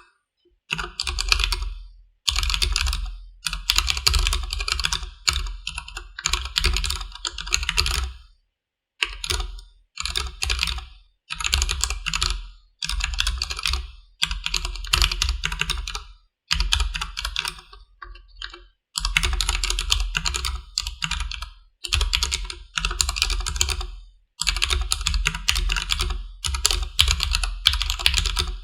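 Steady typing on a Durgod Taurus K320 mechanical keyboard with stock Cherry MX Black linear switches: dense runs of key clacks in bursts of a second or two, broken by short pauses.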